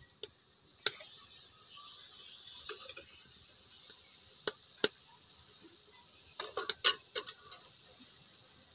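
Steel bowls being set down on a wire steaming stand inside a steel kadai: sharp metallic clinks, one about a second in, two close together around the middle, and a quick cluster a little later, over a faint steady high hiss.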